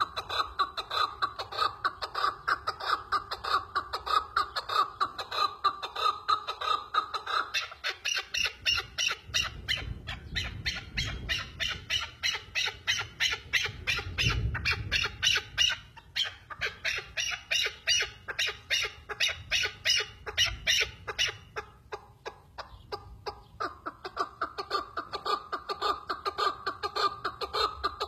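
Chukar partridge giving its rapid, repeated chucking call, about four notes a second. The calls shift higher in pitch for a long middle stretch and drop back lower near the end.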